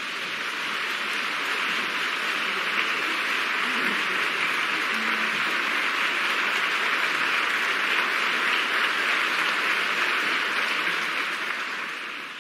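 Theatre audience applauding, a dense, steady clapping that builds over the first couple of seconds and fades near the end.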